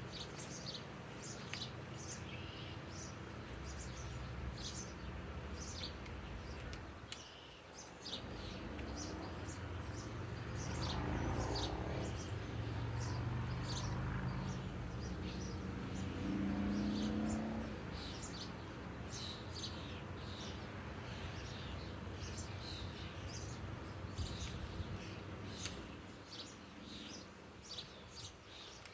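Small birds chirping over and over, with a low rumble that swells about ten seconds in and fades out near eighteen seconds.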